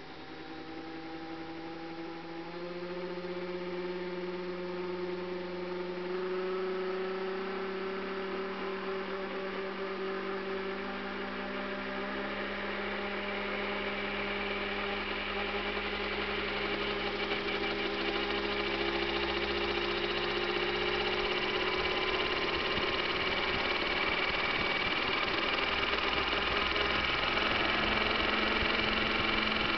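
Electric Century Bell Jet Ranger 30-size RC helicopter spooling up on its clutch drive. The whine of its drive rises slowly in pitch and gets steadily louder as the main rotor gathers speed.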